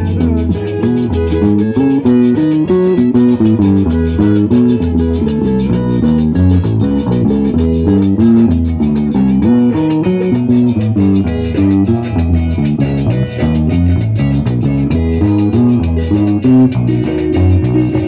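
Carranga music: an instrumental passage of quick plucked-string melody over strummed guitar and a steady bass line, with no singing.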